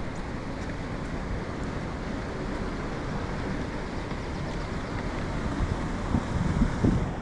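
Steady rushing of a mountain stream flowing over rocks, with wind buffeting the microphone in low thumps about six seconds in.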